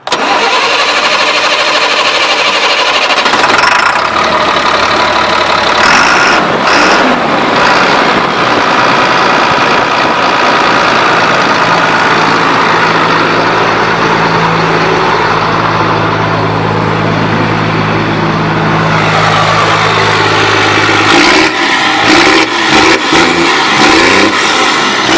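Caterpillar diesel engine of a 2001 Peterbilt 330 pickup running, its note rising a few times as it is revved and otherwise running steadily.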